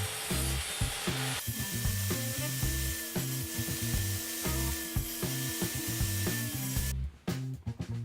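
A power tool cutting wood, which cuts off sharply about a second before the end, over background music with a steady bass beat.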